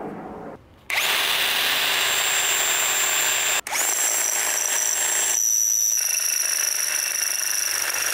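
Handheld power drill boring a hole through a metal bracket clamped in a bench vise. It starts about a second in and runs steadily with a high whine, stopping for an instant about three and a half seconds in before running on.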